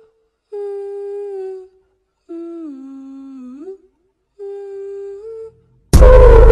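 A voice humming a slow tune in three long held notes with short gaps between them, the middle note sliding down and then back up. Near the end, loud music with heavy bass cuts in suddenly.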